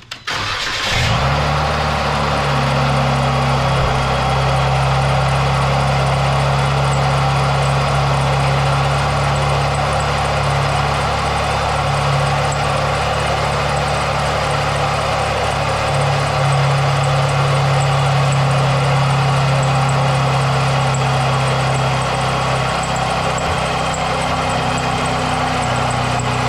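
Jeep Wrangler engine starting about a second in and then idling steadily, loud, with the air conditioning on; the AC compressor pulley adds a noise under the idle, and the owner believes its bearing is going out.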